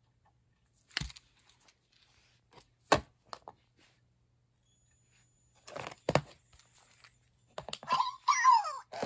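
A Zhu Zhu Pets toy hamster and its plastic playset being handled, with a few scattered knocks and thumps. Near the end come short squeaky electronic chirps that bend in pitch as the hamster is pressed and switched on.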